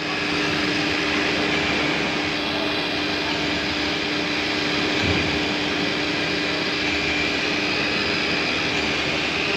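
Holztek CNC nesting router running on a panel: the spindle gives a steady high whine over a constant rushing noise, with a brief low bump about five seconds in.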